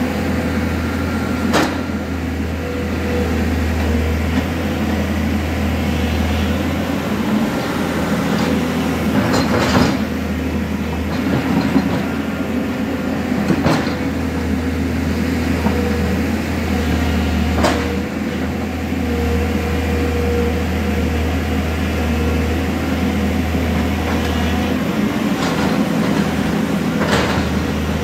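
Excavator engine running steadily as the machine digs and fills its bucket, its low hum easing off and picking up again several times, with a few sharp metallic clanks.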